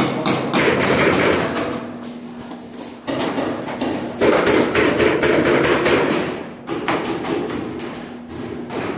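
Rapid paintball fire: dense volleys of shots, with balls smacking hard walls and barricades. It comes in three long bursts, easing briefly about three seconds and six and a half seconds in, and is loudest in the middle burst.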